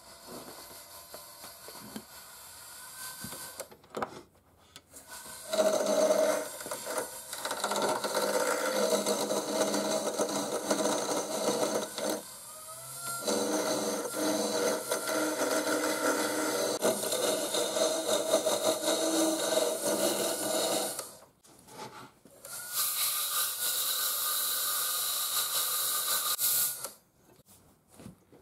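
Small wood lathe spinning a hard-maple blank while a hand-held turning tool cuts it round, the tool biting into the spinning wood with dense scraping and knocking. After a short pause a brighter, hissier pass follows, and the sound drops away near the end as the lathe stops.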